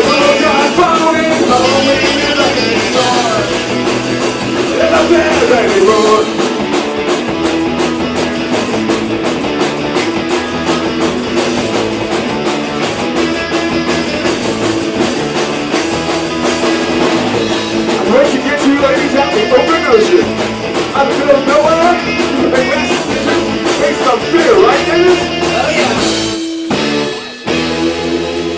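Punk rock band playing live, with guitar, bass and a fast drum kit and singing in parts. Near the end the band stops short for a moment, then comes back in on a held chord.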